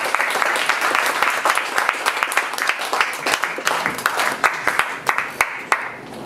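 Audience applauding, thinning out and dying away near the end.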